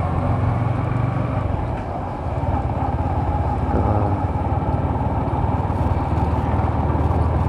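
Motorcycle engine running steadily while riding, a low, even engine note that dips briefly about two seconds in.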